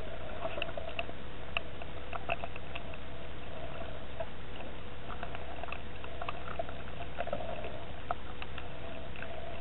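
Underwater sound picked up by a camera in a waterproof housing: a steady hum and hiss with many scattered sharp crackling clicks, and a faint steady whine.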